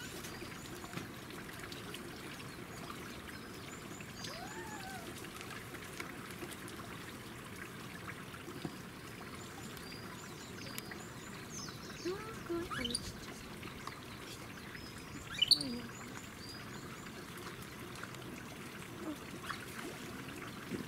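Outdoor ambience: a steady trickle of running water with scattered high bird chirps. A few short squeaky calls break through, the loudest a sharp rising call about fifteen seconds in.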